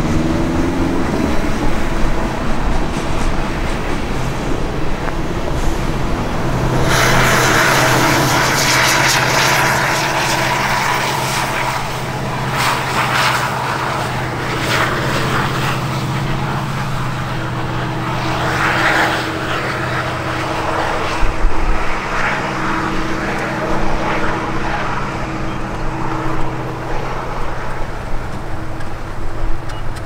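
An engine running steadily, swelling louder about seven seconds in and then easing off, with footsteps crunching in snow.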